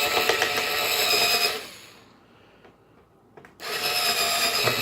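Small power drill running as it bores a headlamp hole for a 5 mm LED in a thin RC truck body. It whines steadily, stops after about a second and a half, then starts again near the end.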